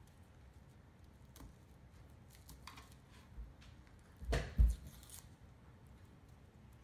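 Papery onion skin being peeled off by hand, faint crinkling and tearing scratches. About four seconds in come two dull thumps, the loudest sounds here.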